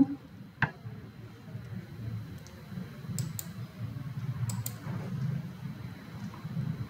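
Low steady background hum with faint clicks: one sharp click about half a second in, then two pairs of short high clicks around three and four and a half seconds in.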